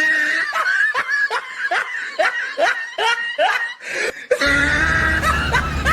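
A person laughing in a quick run of about ten short 'ha' syllables, each falling in pitch, about three a second. Near the end the laughter stops and a steady low drone sets in.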